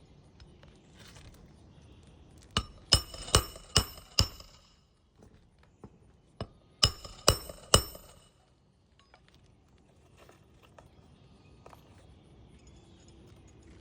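Hammer driving roofing nails into a new asphalt shingle: a light tap and four ringing blows, a pause of about two seconds, then a tap and three more blows.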